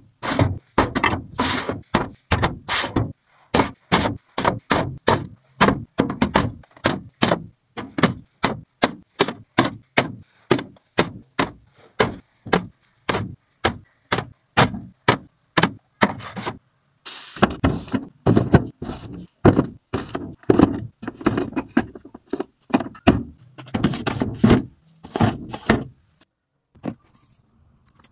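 Metal tins of cat food being set down and stacked on a shelf: a quick run of knocks and clunks, several a second, stopping shortly before the end.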